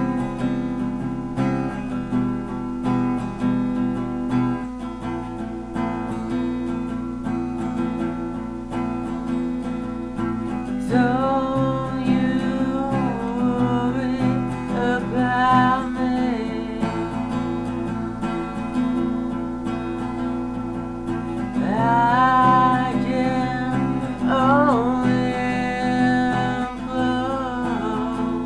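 Guitar playing a song's accompaniment, its notes ringing steadily, with a voice singing over it in two stretches: one about eleven seconds in and one about twenty-two seconds in.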